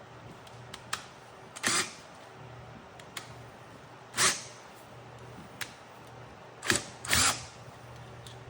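Power drill driving screws in four short bursts, with light clicks in between.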